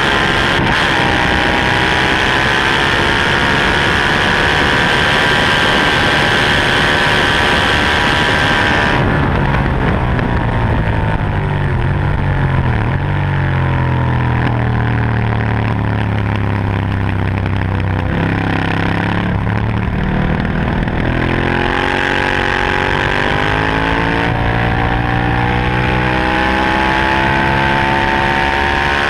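Ducati 1198 superbike's L-twin engine at full throttle with heavy wind rush, then shut off about nine seconds in, its pitch falling in steps as the rider brakes and downshifts. It runs at low revs through the corners and climbs again under hard acceleration near the end.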